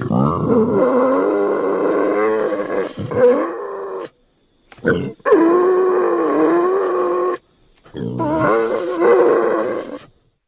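Wild boar calls used as a giant forest hog sound effect: three long, wavering calls with short silent gaps between them, the middle one preceded by a brief shorter call.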